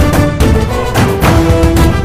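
Instrumental background music with a steady beat and held notes.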